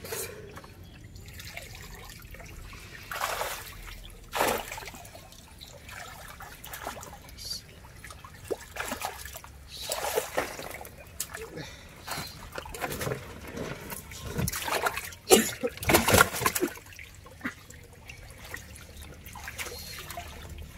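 Water splashing, sloshing and trickling as a fishing net full of fish is hauled up out of a pond, in irregular bursts, loudest in a cluster about three-quarters of the way through.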